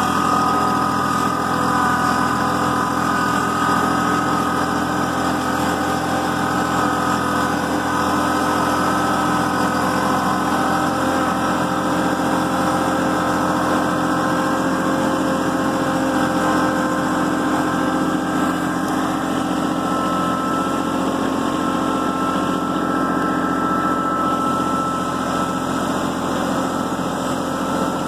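Kubota B2650 compact tractor's three-cylinder diesel engine running steadily, heard from the driver's seat while the tractor carries logs in its front loader.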